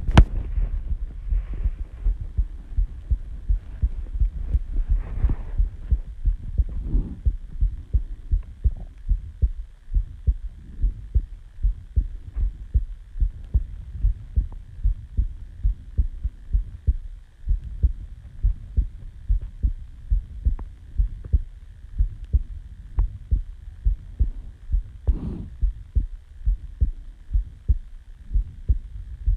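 A person's heartbeat picked up close to the chest, a steady rhythm of low thumps. A sharp click comes right at the start, and a brief rustle about 25 seconds in.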